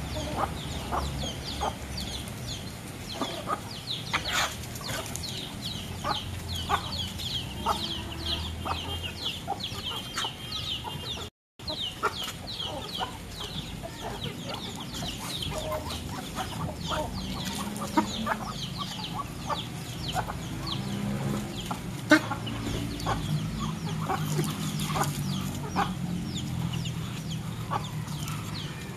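Backyard hens clucking and chicks giving rapid high cheeps while a flock feeds on gravel, with scattered light clicks of bills pecking. The sound drops out for an instant about eleven seconds in.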